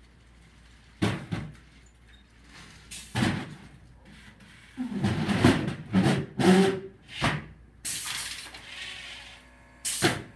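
Student-built competition robot moving in short bursts: a string of about eight sudden, loud mechanical bursts, several carrying a motor whine, with quiet room tone between them.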